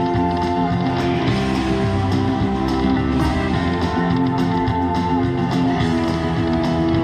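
Guitar-led music with held notes over a steady beat.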